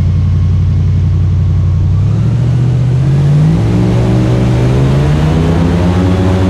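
Airboat engine and propeller running steadily, then speeding up about two seconds in, the pitch rising over the next few seconds as the boat gathers speed.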